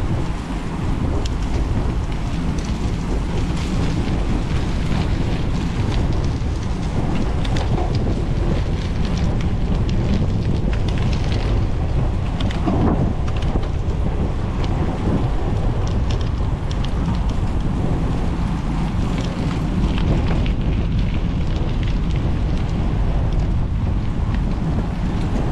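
Wind rushing over an action camera's microphone together with the rumble of bicycle tyres rolling at speed, steady throughout, with many small ticks and crunches from the riding surface.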